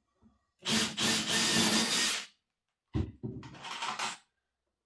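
Makita cordless drill running into pine twice: a run of about a second and a half, then a shorter one about a second later.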